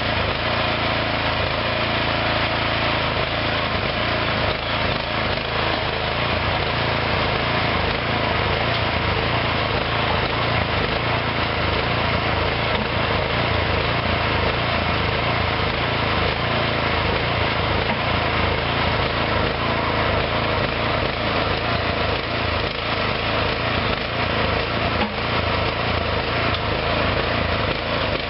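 The engine of a small homemade hydraulic backhoe running steadily.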